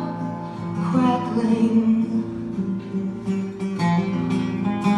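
A song with acoustic guitar playing plucked, strummed chords and a voice singing the word "crackling" about two seconds in.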